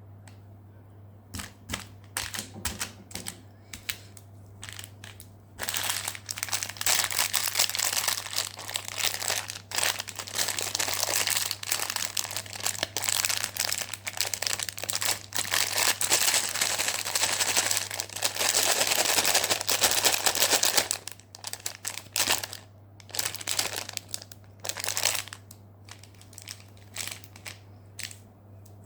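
Candy bar wrapper being unwrapped and handled, crinkling loudly: first a few scattered crackles, then about fifteen seconds of dense continuous crinkling, then sparser crackles again. A faint steady low hum runs underneath.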